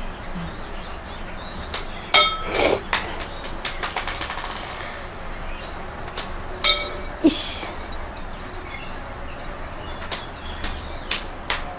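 Glass marbles bounced off a hard floor toward a small steel bowl floating in water: a string of sharp clicks and clinks, two of them ringing briefly like a struck bowl, about two and seven seconds in, and a quick rattle of small bounces around three to four seconds.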